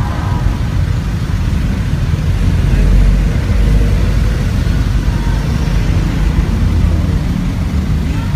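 Steady low rumble of city street traffic, with no distinct single events standing out.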